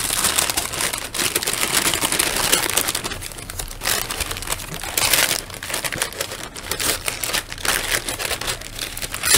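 Brown kraft packing paper and a cardboard shipping box crinkling and rustling as they are handled, with irregular crackles and clicks and a few louder rustles in the middle.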